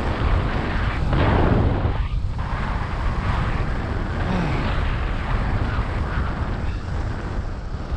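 Loud rushing wind buffeting the camera microphone of a paraglider in flight. It swells and falls with the gusts of airflow.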